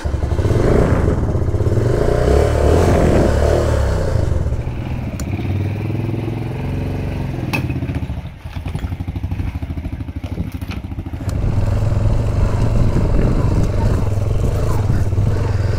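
Motorcycle engine running as the bike pulls away and rides slowly on a gravel lane, with a brief drop in the sound about eight seconds in before the engine comes back steady.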